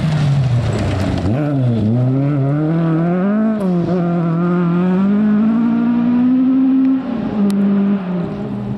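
Rally car engine pulling hard under load, its pitch dipping and climbing as the driver lifts and gets back on the throttle. It rises steadily, drops sharply at an upshift about seven seconds in, then begins to fade as the car moves away.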